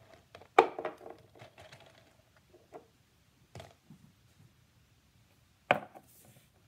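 Small rocks and crystals clacking against each other and a hard surface as they are handled and set down. There are a few sharp knocks, the loudest about half a second in with a short rattle after it, and another strong one near the end.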